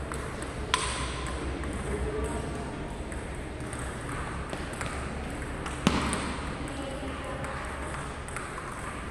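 Table tennis ball clicks in an echoing hall: one sharp click about a second in and a louder one near six seconds, with a steady low background hum between them.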